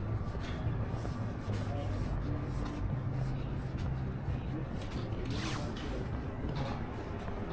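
Outdoor city ambience on a walk: a steady low rumble under a general hum, with scattered light clicks and rustles.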